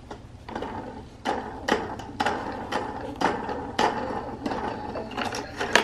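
Plastic bead-and-spinner toy on a baby activity centre's tray clicking and rattling as it is handled, with irregular clicks and knocks two or three times a second.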